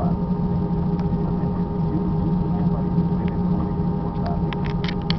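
Airbus A320 engines running steadily, heard from inside the cabin as a constant low drone with a few steady whining tones above it. A few short clicks come near the end.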